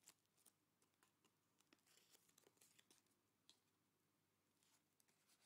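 Near silence with faint, scattered crinkling and light clicks of stiff paper as the folded petals of a layered paper flower are handled and pressed.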